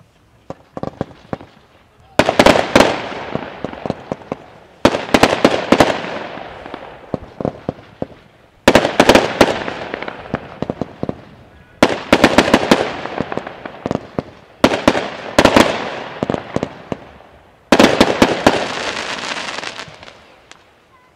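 Aerial fireworks bursting: six loud bangs about three seconds apart, each followed by crackling and a long rolling echo. A few smaller pops come first.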